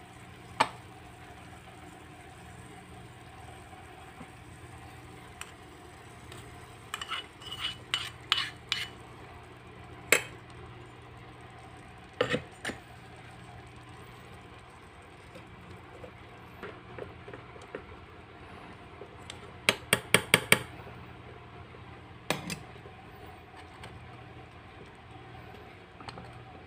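Miniature metal spatula clinking and scraping against a small stainless-steel pan while stirring sautéed squash and string beans. Sharp clinks come scattered through, with a quick run of about six taps around twenty seconds in, over a faint steady hum.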